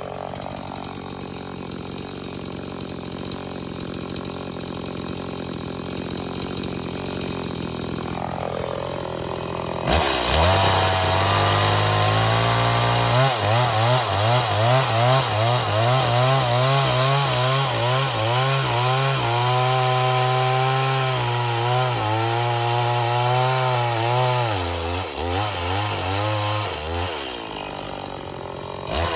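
Stihl MS 180 two-stroke chainsaw idling for about ten seconds, then opened up to full throttle, its pitch wavering up and down as it cuts into a wooden log, and easing back to idle near the end.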